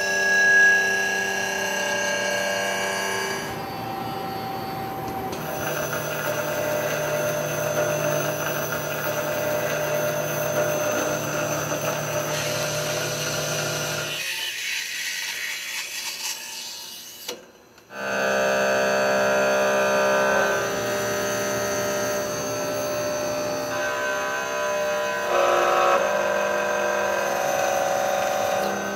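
CNC milling cutter machining metal parts under coolant: a steady cutting whine made of several held tones, which jumps to a new set of pitches at each change of cut. The sound drops away to near silence for a moment about two-thirds of the way through.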